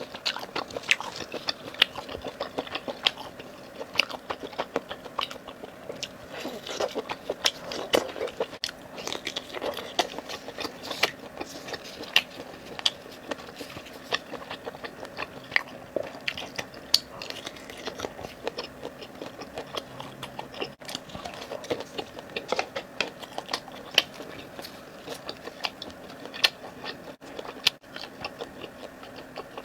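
Close-miked eating sounds: a person biting and chewing food, with many irregular sharp crackly clicks and wet mouth noises throughout.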